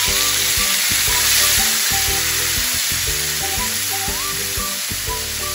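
Spiced water sizzling and spitting as it hits hot oil with curry leaves, green chillies and cumin in a non-stick pan, stirred with a wooden spatula. The sizzle is strongest about a second and a half in and then eases slightly as the liquid heats up. Background music plays under it.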